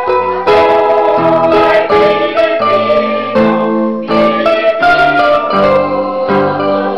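A small amateur choir singing together with electronic keyboard accompaniment in sustained chords.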